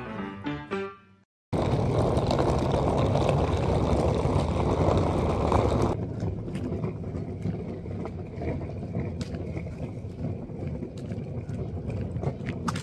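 A music outro ends about a second in, followed by street noise: a loud, steady rush of traffic that cuts off abruptly about six seconds in, then quieter street sound with a few light clicks.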